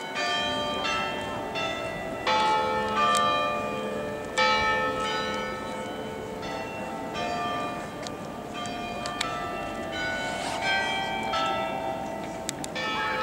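Church tower bells ringing a slow tune, one note struck roughly every second, each at a different pitch and ringing on over the next.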